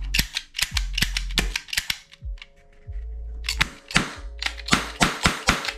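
Toy revolver's trigger and hammer clicked rapidly, about five sharp clicks a second, in two runs with a short pause between, over background music.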